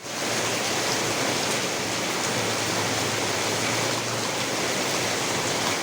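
Heavy rain pouring down in a storm, a steady dense hiss with no let-up.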